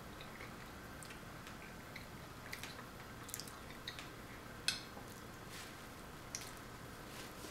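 Quiet eating sounds: a few light clicks of a metal fork against a ceramic plate, the sharpest a little before five seconds in, with soft chewing.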